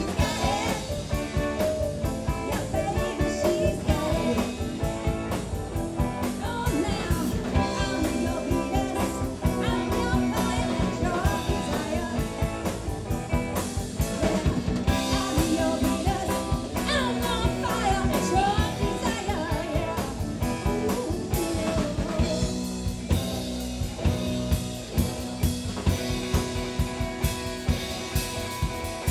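Live band music from electric guitar, electric bass, drum kit and keyboard, with a steady drum beat.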